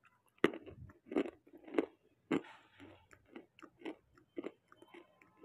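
A person bites into a lump of white khadi (natural white chalk-clay) with a sharp crack and chews it. A few loud crunches come in the first two seconds, then softer crunching chews about twice a second.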